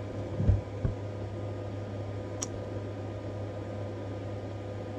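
Steady fan hum with a low drone and a faint whine, broken by two soft low thumps about half a second and a second in and a small click near the middle.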